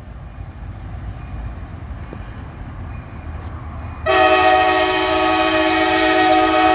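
Locomotive air horn on a Kansas City Southern freight train sounding a long, steady chord of several tones, starting suddenly about four seconds in, over the low rumble of the slow-moving train.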